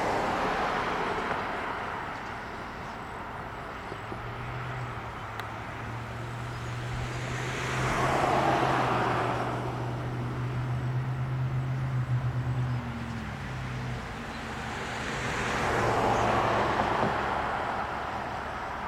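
Road traffic: cars passing one after another, three swells of tyre and engine noise that rise and fade. A low engine drone sits under the middle pass and drops in pitch as it fades.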